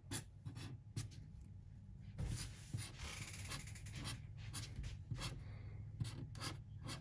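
A pen drawing on paper: a series of short, irregular strokes, with a longer stroke about three seconds in, as graffiti letters are outlined.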